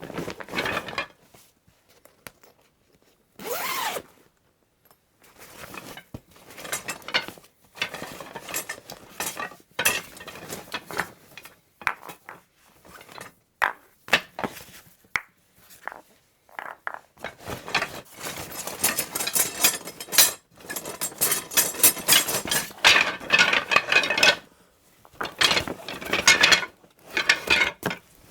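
Rummaging through a croquet bag: irregular rustling with knocks and clinks of the gear inside, in bursts broken by short pauses and busiest in the second half.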